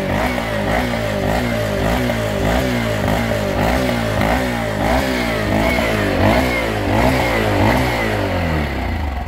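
Honda Monkey 125's single-cylinder four-stroke engine being revved with repeated quick throttle blips, about two a second, the pitch rising and falling each time over a steady low rumble.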